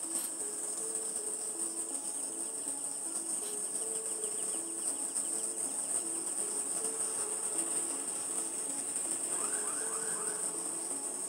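Insects trilling steadily at a high pitch, with faint music of short stepping low notes underneath and a few quick rising chirps about nine to ten seconds in.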